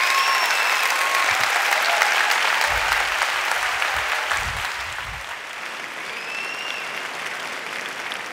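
Audience applauding at the end of a talk: dense clapping, loudest for the first five seconds, then easing off but still going.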